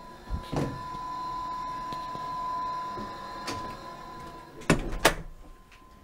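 Wooden room doors being handled: a few knocks and bumps, with two sharp loud knocks near the end, over a steady thin high whine.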